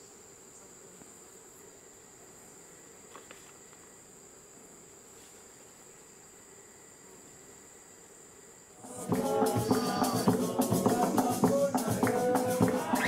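Faint, steady high-pitched insect drone in the forest, then loud music with percussion starts suddenly about nine seconds in and becomes the loudest sound.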